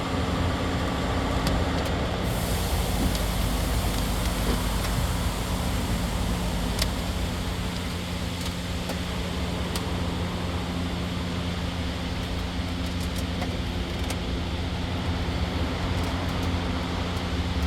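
Steady mechanical hum with a low rumble, with a few faint clicks.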